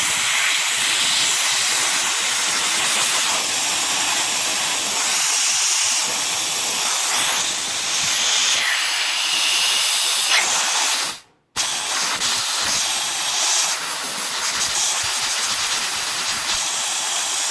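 Compressed air hissing steadily out of a valve fitted to a 50-litre air compressor. The hiss cuts out abruptly for a moment about eleven seconds in, then carries on.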